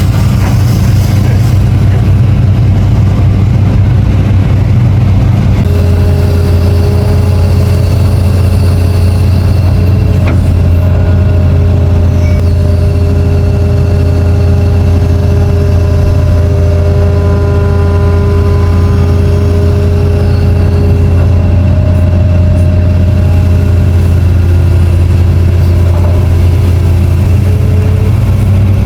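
Long-reach excavator's diesel engine running steadily with a strong low drone. About six seconds in, a whine of several steady tones joins it and fades out near the end.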